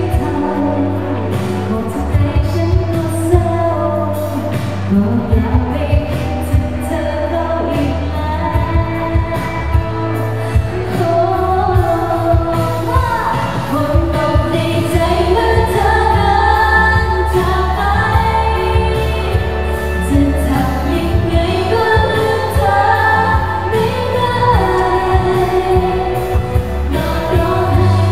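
Thai pop song performed live: female voices singing into microphones over a backing track with a steady low bass line.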